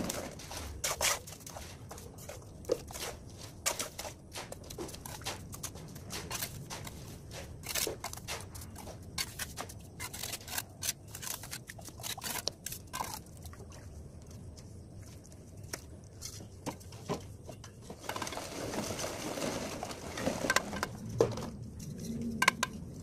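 Steel brick trowel scraping and tapping in wet mortar, scooped from a bucket and spread on a brick course, as a run of irregular short clicks and scrapes. The scraping thickens into a denser stretch near the end.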